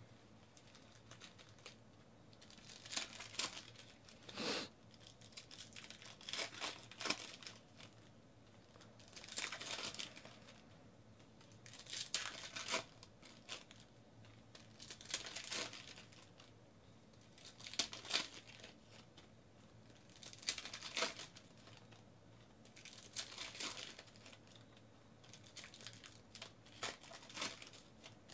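Foil trading-card pack wrappers being torn open and crinkled, one pack after another, in about nine short bursts roughly every three seconds.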